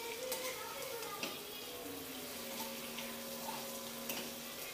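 Boiled potato pieces sizzling in oil in a steel kadai, with a few light clicks of a spatula stirring against the pan.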